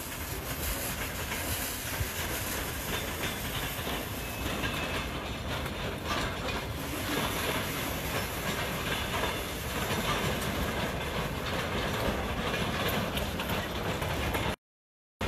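A railway train running past, a steady noise with no clear beats. The sound cuts out suddenly for about half a second near the end.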